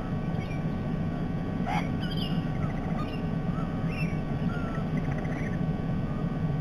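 Short bird calls, scattered chirps and a few quick rising whistles, over a steady low background rumble.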